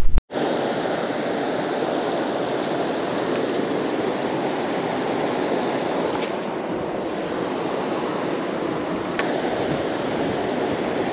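Steady rushing of river water flowing over rocks, with a few faint clicks.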